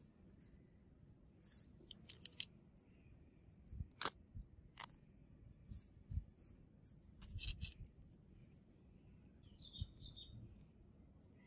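Gloved hands handling an old leather sunglasses case and metal-framed sunglasses: scattered short, sharp clicks and soft rustles, with a few light thumps, all faint.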